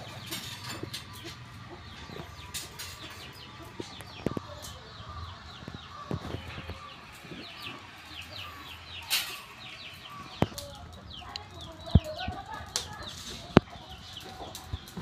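Chickens clucking amid many short, high chirps, with a few sharp knocks now and then.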